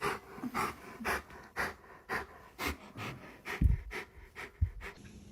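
A dog panting in short, even breaths, about two a second, with two low thumps near the end.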